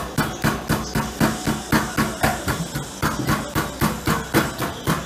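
Pestle pounding garlic in a mortar, a steady run of sharp knocks about three to four a second, the first step of making som tam.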